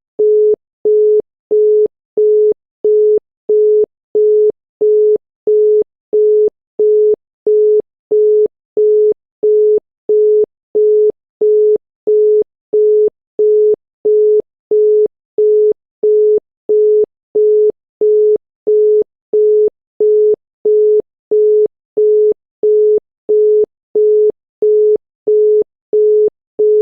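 Czech and Slovak telephone busy tone: a single 425 Hz tone beeping on and off in even one-third-second pulses, signalling that the called line is busy.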